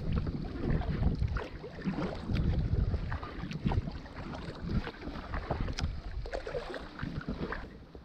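Kayak paddle splashing and water dripping, many small irregular splashes, over gusty wind rumbling on the microphone. The sound drops off shortly before the end.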